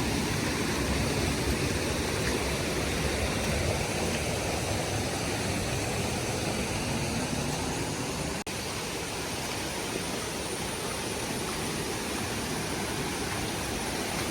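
Steady rush of a waterfall running in full monsoon flow, water pouring and splashing with no pauses.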